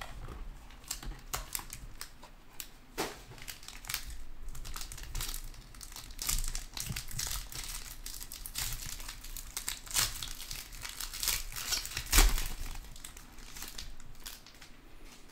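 Foil wrapper of a trading-card pack crinkling and tearing as it is peeled open by hand, in a dense run of crackles. A single thump comes about twelve seconds in.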